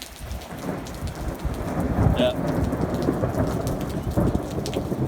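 Thunder from a close lightning strike rumbling, building about a second in and rolling on, over steady pouring rain.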